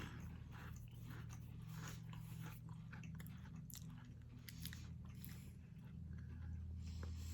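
Crisp cream wafers being bitten and chewed, a string of faint, irregular little crunches over a steady low hum.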